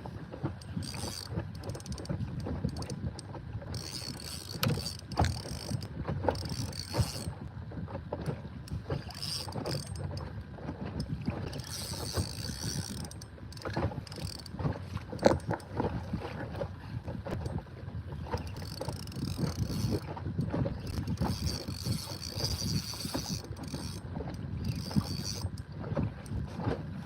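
Fishing reel clicking and ratcheting irregularly as line is worked against a hooked fish, with water sloshing against the kayak hull.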